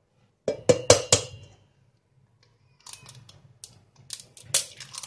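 Eggs being cracked on a stainless steel mixing bowl: a quick run of sharp taps and clicks of shell on metal about half a second in, then softer clicks and one sharp knock near the end.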